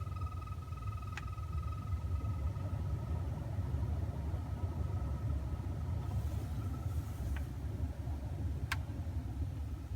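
Failing heater blower motor in a 2001 Volvo S80 running with the fan on: a steady low rumble with a high whine that fades about two seconds in, and three sharp clicks. The noise is the sign of a bad blower motor.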